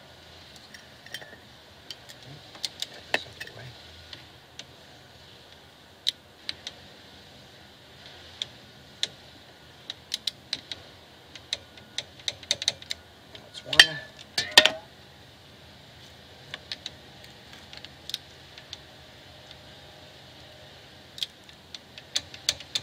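Torque wrench working the brake caliper bolts: scattered light metallic clicks and rattles of the wrench and socket on the bolt heads, with a louder double clack about fourteen seconds in. The bolts are being brought to about 20 ft-lb.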